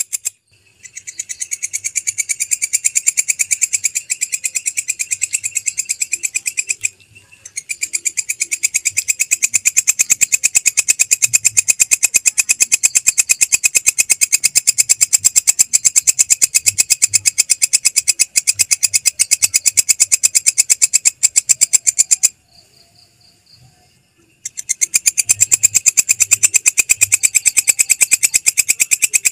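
Belalang kecek (kecek grasshopper) calling: a loud, high, rapid pulsed chirring that runs on in long bouts. It stops briefly about half a second in and again about seven seconds in, then falls quiet for about two seconds near the end before starting again.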